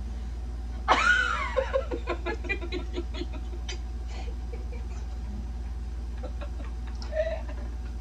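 A child's high-pitched squeal about a second in, breaking into a run of giggling laughter that fades out. A short voiced laugh sound comes near the end.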